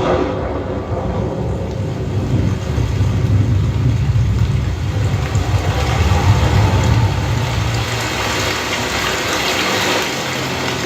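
Dolby demo soundtrack played through a 3.1-channel home theater system: a steady rushing noise over a deep bass rumble that swells in the middle and eases off near the end.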